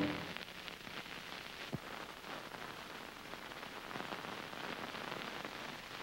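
Steady crackling hiss of an old film soundtrack with no music or speech, dotted with small clicks and one sharper pop a little under two seconds in.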